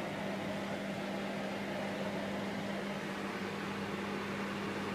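Silvercrest 2000 W electric fan heater running and blowing hot air: a steady rush of air with a constant low hum.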